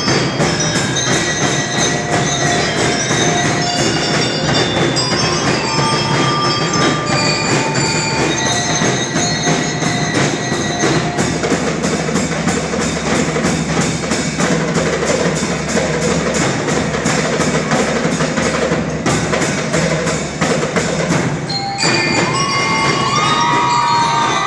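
School drum and lyre band playing: a fast, steady drum cadence with bell lyre notes ringing above it. Near the end the drumming thins out.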